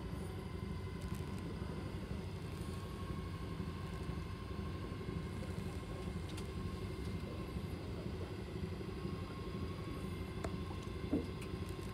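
Fishing boat's engine idling, a steady low rumble, with a faint steady whine above it and a small knock about eleven seconds in.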